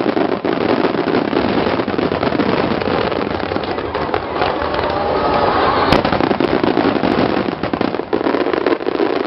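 Dense, continuous barrage of fireworks, many bursts and crackles running together, with one sharper bang about six seconds in.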